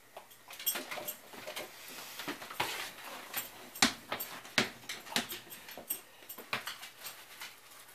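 A dog's paws in new snow booties stepping and scuffing on a hardwood floor: irregular taps and clicks as she walks about.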